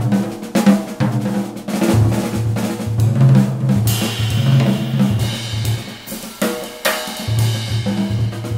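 Music with a drum kit playing many quick strikes over a bass line and held chords.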